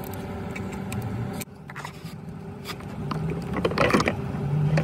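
Ratchet wrench clicking and small metal tool sounds as engine-bay bolts are loosened and pulled out, over a steady low background hum.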